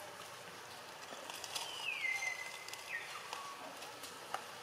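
A single high animal call, sliding down in pitch, held for about a second, then dropping briefly at the end. A few faint clicks come around it, and one sharp tick near the end.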